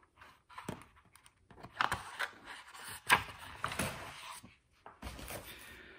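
A stack of printer paper being lifted out of a plastic printer paper cassette: paper rustling and sliding, with a few sharp taps and clicks.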